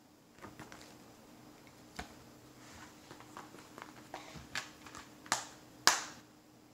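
Paper booklet and a clear plastic Blu-ray case being handled: soft rustling and a string of small plastic clicks, then a loud sharp snap near the end as the case is shut.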